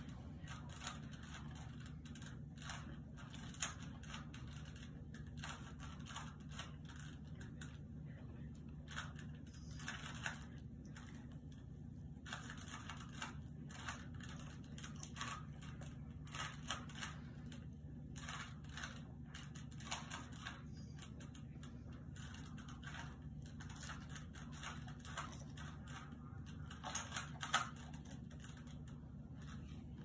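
Plastic 3x3 Rubik's cube being turned quickly by hand: rapid, irregular clicking and clacking of its layers in short clusters, with a louder clack a few seconds in and another near the end.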